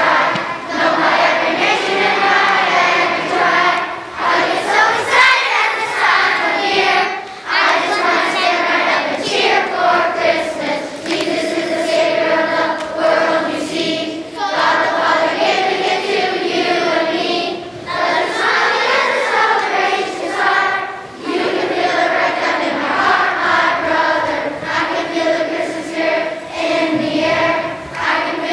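A large group of children singing a song together, with brief pauses between lines.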